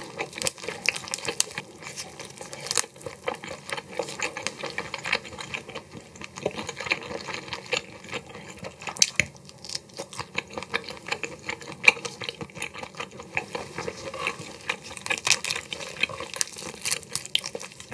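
Gloved fingers peeling the soft shells of cooked ghost shrimp, a dense run of small wet crackles, clicks and tearing, with the meat being bitten and chewed about halfway through.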